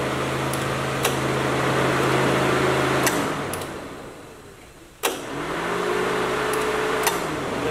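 Electric radiator cooling fans of a 1999 Subaru Forester running with the ignition on and the engine off. About three seconds in they cut out and wind down, falling in pitch. About five seconds in they switch back on with a click and spin up again. The fans cycling on and off at key-on, together with a flashing check engine light, sound to the mechanic like the car is in some testing mode.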